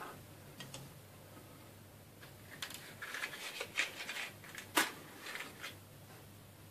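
A box of matches being handled and a match struck: scratchy rustling and small clicks, then one sharp scratch about five seconds in, followed by a few faint taps.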